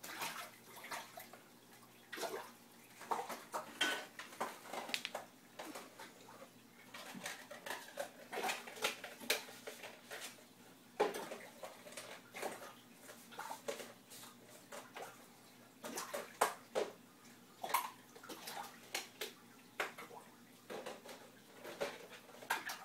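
Aquarium water splashing and slapping in quick irregular bursts as a shoal of cariba piranhas strikes at feeding pellets at the surface, with sharp clicks mixed in. A faint steady hum runs underneath.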